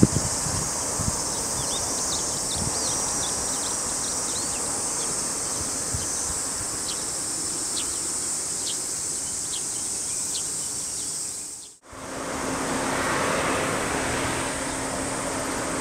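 Steady high-pitched insect drone with many short chirps scattered over it. After a brief dropout near the end, a steady low hum with a faint tone takes over.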